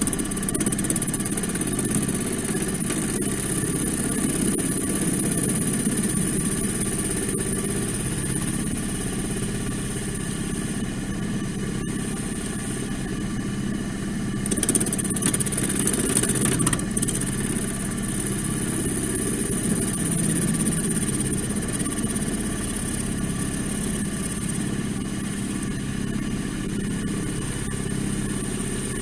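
Wood lathe running steadily while a flat chisel shaves the surface of a spinning laurel blank, smoothing off ridges left by the roughing gouge. The cutting gets louder for a couple of seconds about halfway through.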